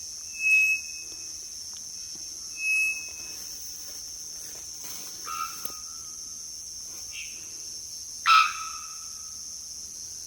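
Male three-wattled bellbird giving its mating call: two short, clear whistled notes in the first three seconds, then abrupt, far-carrying bonk-like calls that drop to a lower held tone, a weaker one about five seconds in and the loudest one about eight seconds in. A steady high drone of insects runs underneath.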